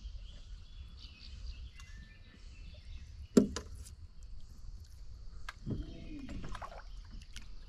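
A small hooked fish splashing at the water's surface beside the boat, with one sharp knock about three and a half seconds in that is the loudest sound.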